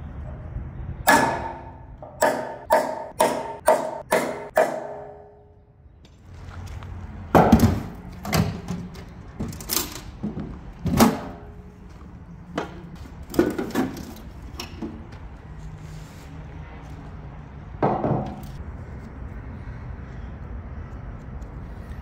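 Hammer striking the thick steel plate of a bulldozer blade's corner tip about seven times in quick succession, each blow ringing. After that come irregular knocks and clunks as a magnetic drill is handled in its metal carry case.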